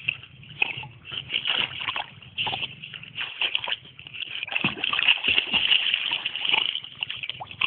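Pool water splashing and sloshing in quick, irregular strokes as a young rottweiler paddles through it.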